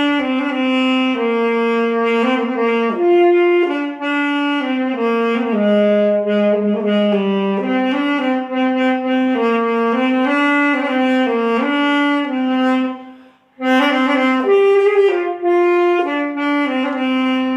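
A wind instrument melody with a reedy, saxophone-like tone, played as two lines moving together in held notes that step up and down. It breaks off for a moment about thirteen seconds in, then carries on.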